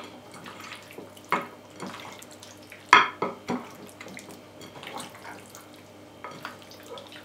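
Hands mixing pork ribs in a thick mayonnaise and soy sauce marinade in a bowl: irregular wet squelches and slaps of meat, the loudest about three seconds in.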